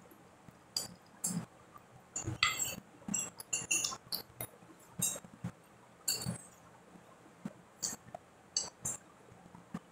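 Irregular wet clicks and smacks of a person eating stewed chicken feet by hand, sucking and chewing at the bones close to the microphone.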